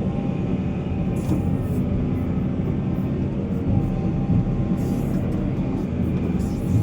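Heavy diesel mining machinery running steadily, a deep even drone with faint held tones over it.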